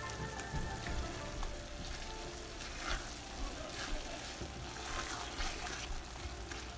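Thick fish curry sizzling in a metal karahi as a red silicone spatula stirs it, with soft scrapes now and then. The spice paste is being fried down (kosha) until the oil separates.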